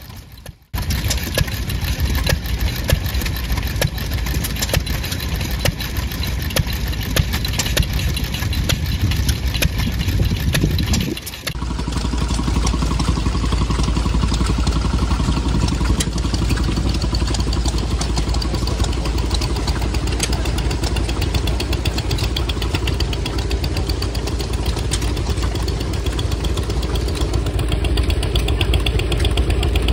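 Vintage stationary engines running, each with an even, regular firing beat. About eleven seconds in, the sound cuts to a different engine with a stronger, steadier low hum under its beat.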